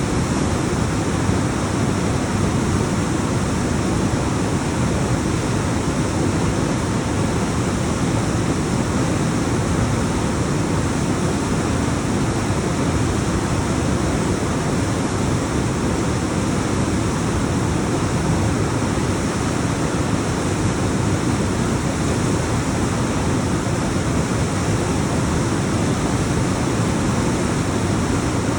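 Alpine waterfall cascading down rocks: a steady, full rush of falling water with no changes or breaks.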